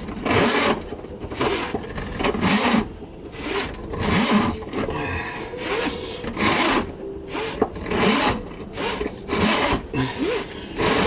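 Drain snake cable being worked by gloved hands through the open threaded outlet of a sink drain tee, scraping against the fitting and pipe in repeated bursts every second or two.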